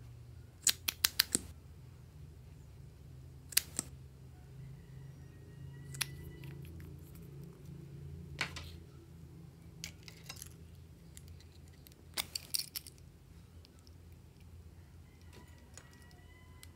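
Lipstick tubes and caps being handled, giving sharp hard clicks and clatters in small clusters: a quick run of about five near the start, a few scattered single taps, and another run after about twelve seconds. A couple of faint short squeaks come in between.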